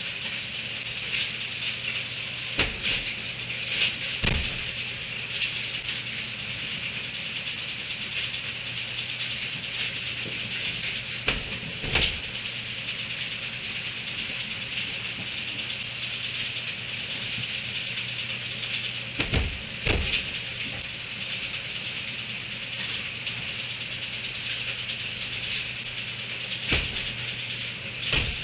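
Metal hay rack knocking and rattling as donkeys pull hay from it, in short pairs of knocks every several seconds, over a steady high hiss and a low hum.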